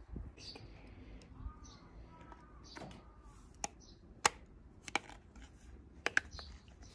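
Light, sharp clicks and taps from a small steel-plate phone holder wrapped in aluminium tape being handled and pressed with the fingers, scattered through the second half with a quick double click near the end.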